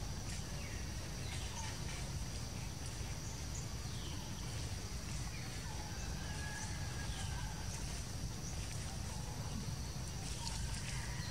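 Forest ambience: a steady high-pitched insect drone with scattered short bird chirps over a low steady rumble.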